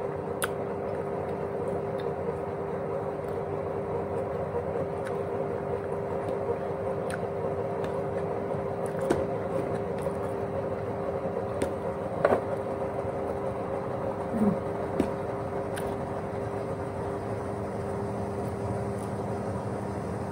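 Steady mechanical hum holding a few fixed tones, with a handful of light clicks and taps from eating scattered through it.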